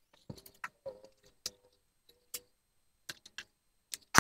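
Scattered sharp metallic clicks and clinks, sped up five times, from hands working on the belt housing and timing belt at the top of a Cincinnati Toolmaster milling machine's head, with a louder clatter near the end.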